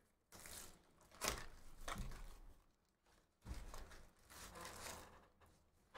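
Cardboard trading-card hobby box being torn open by hand: quiet tearing and crinkling of the packaging in three short spells.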